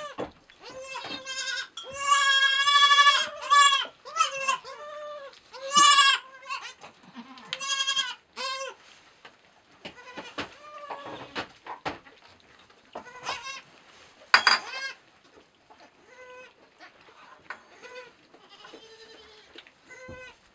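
Newborn goat kids bleating again and again in high voices, loudest and most frequent over the first nine seconds, with one long wavering bleat about two seconds in; later the bleats come fainter and further apart. One short sharp noise stands out about fourteen seconds in.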